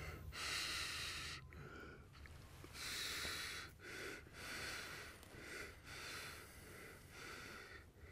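A man breathing audibly close to the microphone: soft, airy in-and-out breaths about once a second, over a faint low hum.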